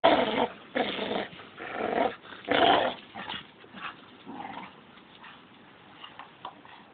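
Pit bull growling in four loud, rough bursts about a second apart, then a few fainter, shorter growls that die away.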